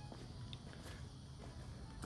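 Faint footsteps on garden ground, a few soft ticks over a low steady background rumble.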